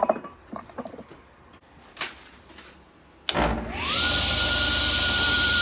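A few faint knocks and clicks, then about three seconds in a belt-driven table saw is switched on. Its motor whine climbs quickly and settles to a steady run with a hiss above it.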